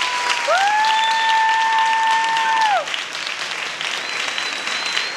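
Audience applauding, with one long high call held over the clapping for about two seconds. The call rises in pitch at its start and falls away at its end.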